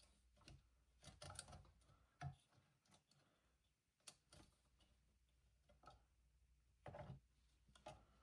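Faint, scattered clicks and taps of hands working the fan and its wire clips onto a tower CPU air cooler's heatsink, a handful of separate knocks a second or so apart.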